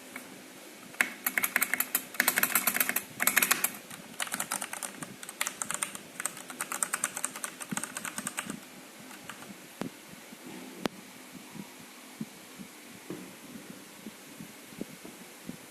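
Typing on a Ducky mechanical keyboard fitted with PBT keycaps: fast runs of key clacks starting about a second in, thinning out to scattered single keystrokes after about eight seconds.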